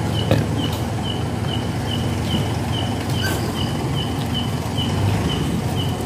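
Steady low rumble of a motorcycle engine and road noise while riding, with a short high chirp repeating evenly about twice a second.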